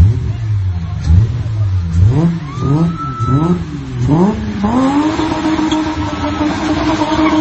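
BMW E30's engine revved in a series of quick blips, then held steady at high revs from a little past halfway as the car spins.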